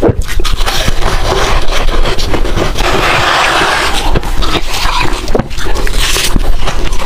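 Soft, powdery ice being bitten and chewed close to the microphone: a dense run of crisp crunches and crackles.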